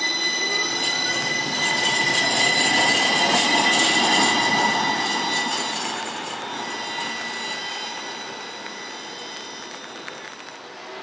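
Modern electric streetcar passing close by and running off down the street, a high steady whine over the rumble of its wheels on the rails. Loudest a few seconds in, then fading as it draws away.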